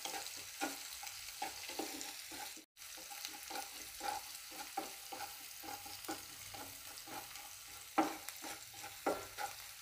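Wooden spatula stirring and scraping chopped garlic and green chillies around a non-stick wok, with light knocks a few times a second over a faint sizzle of hot oil: the garlic and chillies being sautéed. The sound drops out briefly about three seconds in.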